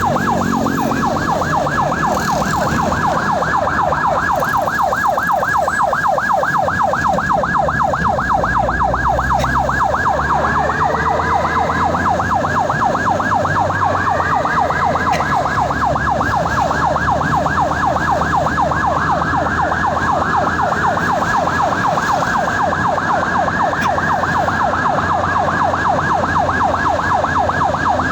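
Ambulance siren on a rapid yelp, sweeping up and down several times a second without a break, over the low rumble of the vehicle on the road. A fainter, slower rising-and-falling wail comes and goes from about a third of the way in.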